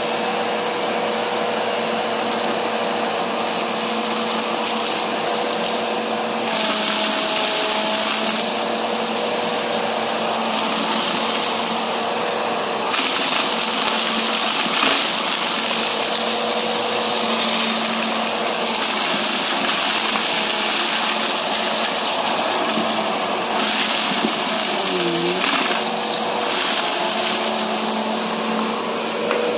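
Bissell PowerForce Helix upright vacuum cleaner running continuously, a steady motor hum under a rush of air. The air rush gets louder and softer every few seconds as the head is pushed back and forth over fine dirt on carpet.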